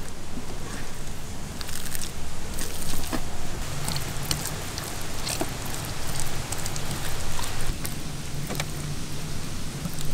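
Wet, sticky squelching and smacking of hands rubbing thick masala paste into a whole catfish. Irregular wet clicks come over a steady hiss and a low hum.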